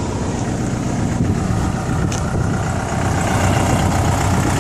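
Komatsu PC60-7 mini excavator's diesel engine idling steadily.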